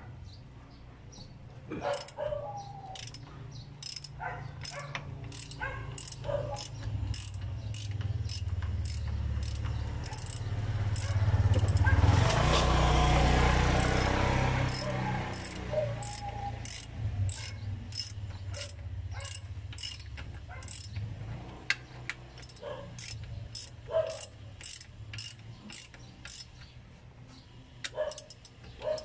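Ratchet wrench clicking in short runs as a mechanic works bolts loose on a truck's transmission. A louder rumble swells and fades in the middle.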